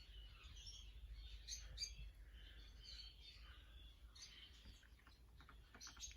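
Faint, scattered bird chirps and calls over near silence.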